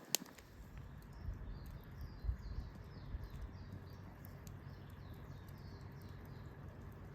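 A bird singing a quick run of short, high, falling notes, about two a second, with a sharp click near the start and a few soft low knocks in the first seconds.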